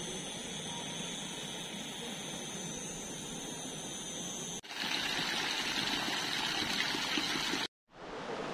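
Steady rush of a rocky mountain river's flowing water, louder and brighter after a cut a little past halfway, with a brief dropout near the end.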